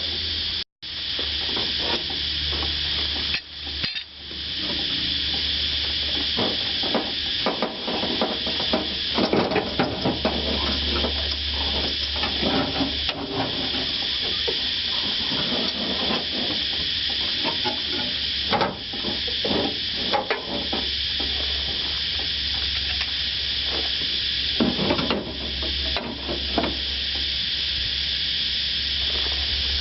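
Irregular metallic clicks, clinks and knocks as a window regulator and its track wheels are worked inside a Chevrolet truck door, over a steady hiss and low hum. The sound cuts out briefly twice near the start.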